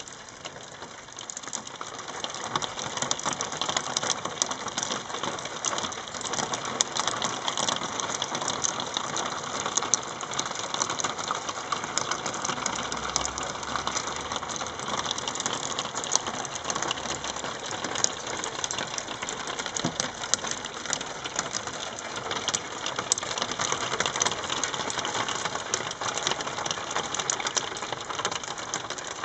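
Soft hail falling steadily onto roofs: a dense, even shower of many small ticks.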